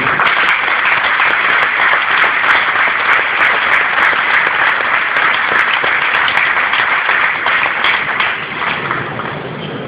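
Stadium crowd applauding, a dense clatter of many hands that starts abruptly and dies away near the end.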